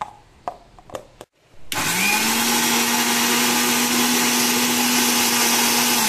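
A few clicks as the lid is pressed onto a small steel chutney jar. About two seconds in, an Indian mixer grinder starts, its motor whirring up to speed and then running steadily as it dry-grinds roasted peanuts with chillies, garlic and ginger. It is switched off right at the end.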